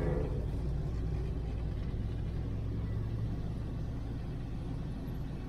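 Steady low rumble of the 1968 Chevelle Nomad wagon's LS-swapped V8 running as the car creeps along at low speed.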